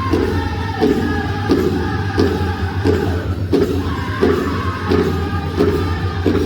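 Powwow drum group singing a chicken dance song, several men's voices together over a big drum struck at a steady beat, about three beats every two seconds.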